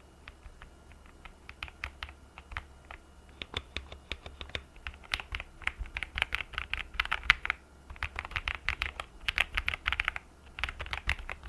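Typing on an Akko MonsGeek M1 V5 mechanical keyboard, a smooth-sounding clacking of keys. Single keystrokes come slowly at first, then give way about halfway through to quick runs of fast typing with short pauses between them.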